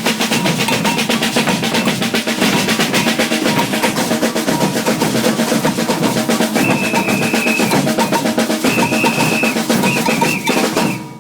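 Maracatu percussion ensemble of alfaia bass drums, snare drums and shakers playing a dense, fast rhythm. A high held tone sounds three times in the second half, and the playing stops just before the end.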